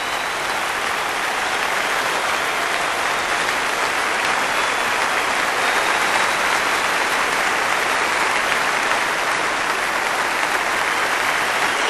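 Audience applauding in a steady, sustained ovation, swelling slightly over the first few seconds.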